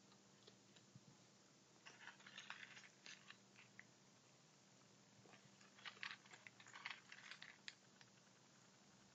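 A raccoon crunching dry pet food, faint, in two bouts of quick crackly bites, one about two seconds in and a longer one about six seconds in. A low steady hum runs underneath.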